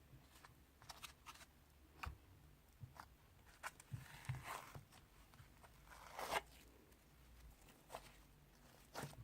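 Plastic slime containers being handled and opened: scattered faint clicks and short crinkling rustles, the loudest about six seconds in.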